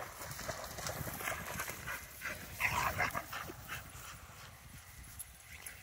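A dog barking during rough play, the loudest bark about two and a half to three seconds in.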